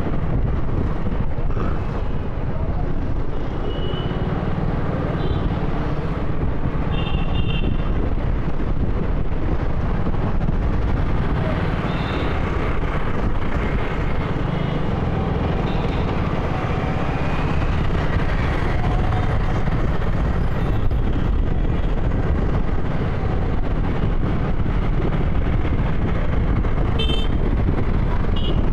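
Steady engine and road rumble of a motorcycle riding in city traffic, with vehicle horns tooting briefly several times, twice close together near the end.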